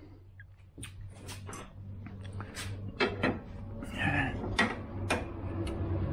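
Hand tools and metal parts clinking and knocking during work on a car's front CV axle and suspension: a run of sharp, irregular knocks. A steady low hum runs underneath.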